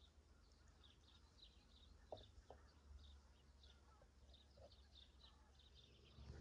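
Faint birdsong: many small birds giving short, high chirps in quick succession, with a few lower calls about two seconds in, over a steady low rumble.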